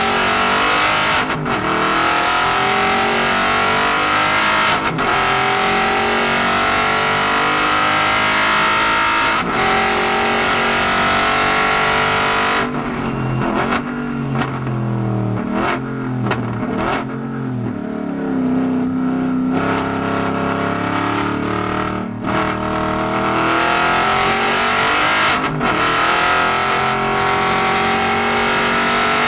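Aston Martin Vantage GT4's V8 race engine heard from inside the cabin, rising in pitch as it accelerates through the gears with three upshifts in the first ten seconds. About halfway the engine comes off the throttle and drops down through the gears under heavy braking. It then accelerates again with two more upshifts.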